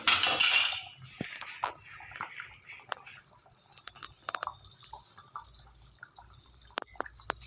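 A short loud rush of noise in the first second, then scattered clinks and knocks of kitchen utensils and pots.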